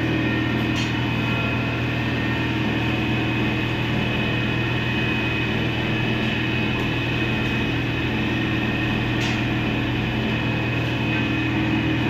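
Steady machine hum of automatic kadhai pans running, their geared electric motors turning the stirrer arms, with a few faint higher tones over it.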